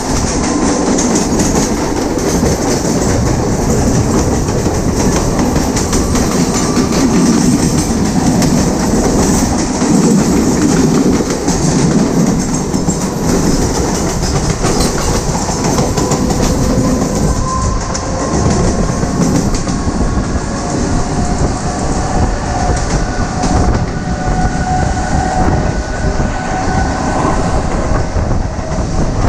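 Mumbai suburban electric local train running at speed, heard from its open doorway: a steady rumble of wheels clattering over rail joints, with a second local running close alongside. In the later part a faint traction-motor whine rises slowly in pitch.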